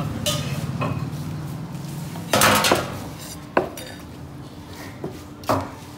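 Large fish-cutting knife knocking and scraping against a wooden chopping block and sea bass flesh as the fish is cut up: a few sharp separate knocks, with a louder scraping stretch about two and a half seconds in.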